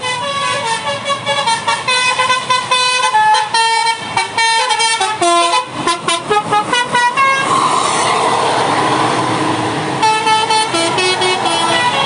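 A bus's Basuri multi-tone 'telolet' air horn playing a fast tune of short notes, the last notes stepping down in pitch. After a gap of steady rushing noise, a second short burst of the tune plays near the end.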